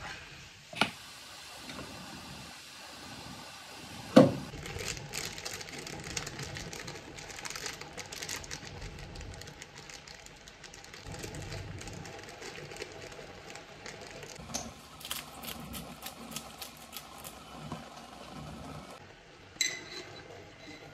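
Kitchen handling noises over ground beef frying faintly in a saucepan: scattered clicks and knocks as spices are added. A sharp knock about four seconds in is the loudest, and runs of quick clicking come a little after it and again near the end.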